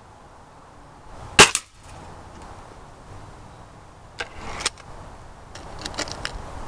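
A .22 Beeman RS2 break-barrel spring-piston air rifle firing once, a sharp crack followed a fraction of a second later by a second, weaker crack. A few lighter clicks follow a few seconds later.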